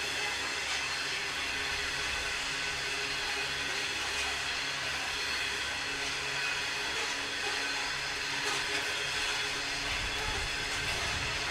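Train running past on the rails: a steady drone with many held tones, and a deeper rumble building about ten seconds in.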